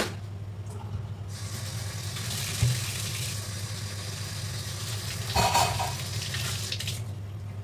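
Kitchen tap running into a steel sink: a steady hiss that starts about a second in and stops abruptly near the end, with one clank of a dish or utensil in the sink partway through. A steady low hum sits underneath.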